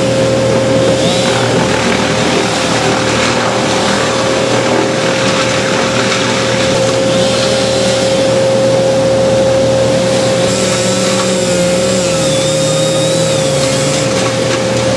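An engine-driven machine running steadily and loudly, with a constant hum.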